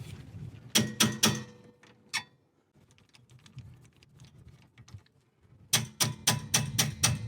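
Sharp metallic clicks and taps of hand tools on a car's rear brake hub and caliper hanger: three close together about a second in, a few faint ticks through a quiet middle, then a quick run of about eight, roughly four a second, near the end.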